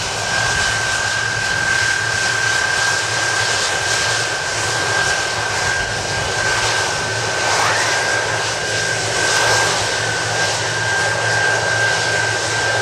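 Jet engines of a Boeing 747-400 freighter running at low power on the ground: a steady rushing noise with a high whine held throughout.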